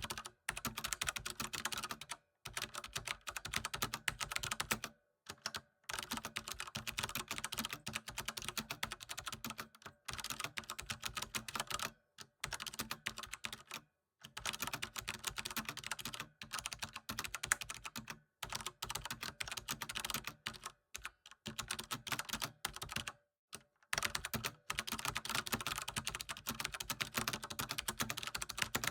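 Typing on a computer keyboard: fast, continuous keystrokes in runs of a few seconds, broken by brief pauses.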